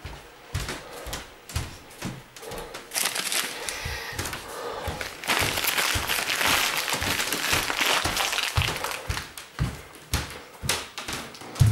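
Handling noises: scattered knocks and rustling, then a dense rustling or blowing noise lasting about four seconds from the middle of the stretch, with more knocks after it.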